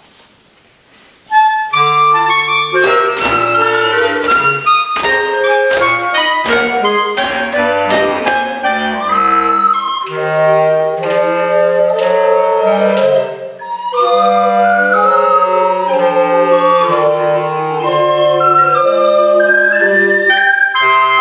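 A woodwind ensemble starts playing about a second in: a lively piece of quick, short notes over a low bass line. The music drops off briefly about thirteen seconds in, then carries on.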